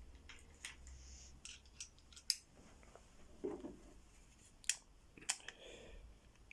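Scattered sharp metallic clicks and short scrapes from small metal parts being handled, a lock and tools, with the loudest clicks about two seconds in and near the middle.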